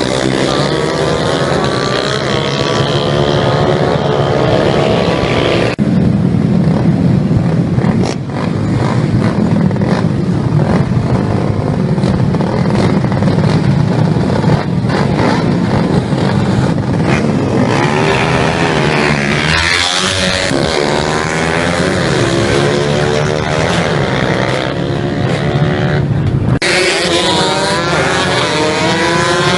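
Several motorcycle engines revving and running at speed, their pitch rising and falling. The sound changes abruptly about six seconds in and again near the end.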